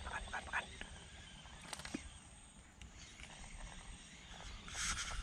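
Faint outdoor ambience: a low wind rumble on the microphone, a few short high sounds right at the start, and a brief rustling noise near the end.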